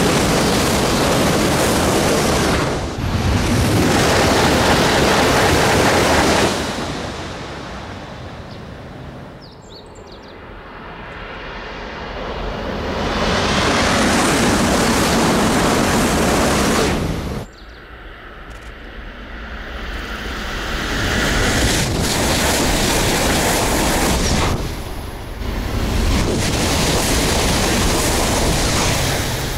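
Shinkansen bullet trains, among them the E956 ALFA-X test train, passing at high speed in several separate passes. Each is a loud rushing roar of air and wheels that swells and fades, with an abrupt cut between passes about 17 seconds in.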